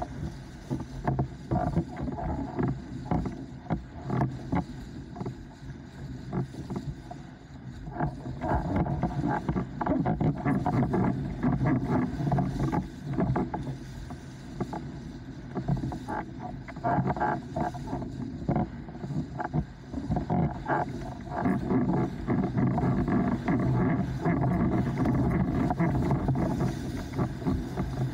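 Starboard 104-litre windsurf board planing over chop: water rushing under the hull, broken by many quick irregular slaps, with wind on the microphone.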